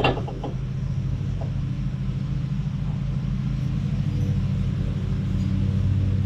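Allis-Chalmers tractor engine running steadily with a low, even rumble, growing slightly louder toward the end.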